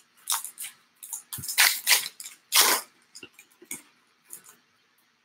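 Trading card pack being torn open by hand: a run of crinkling, tearing rustles from the wrapper, loudest from about one and a half to three seconds in, then a few lighter rustles and ticks as the cards are handled.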